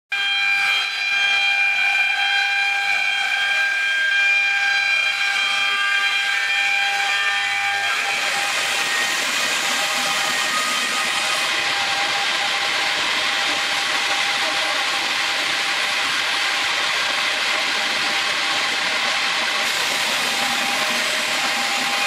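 The alloy circular saw blades of a double-blade angle sawmill, spinning and sawing a log into square timber. For the first several seconds it is a high, steady whine made of several tones. About eight seconds in this turns into a steady rushing noise of the blades cutting wood, with the whine still faintly under it.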